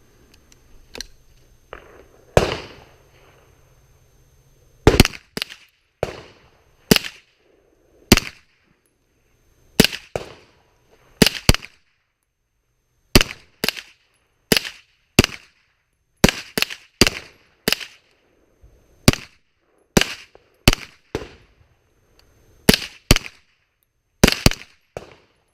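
Gunshots fired at a deliberate pace, singly and in quick pairs, about thirty in all with short pauses between strings.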